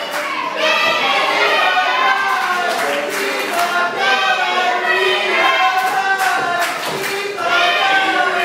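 A crowd of wrestling spectators shouting and chanting together, many voices overlapping, with scattered claps or thuds.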